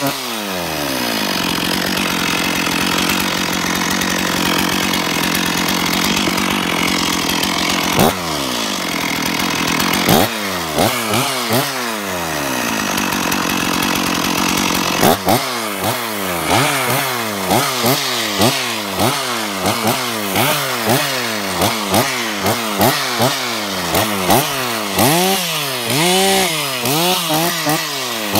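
Stihl two-stroke chainsaw running at high revs, its pitch dropping in long sweeps as it is loaded in the cut, then from about halfway revved up and down about once a second in quick blips. The saw is felling pine stems to waste.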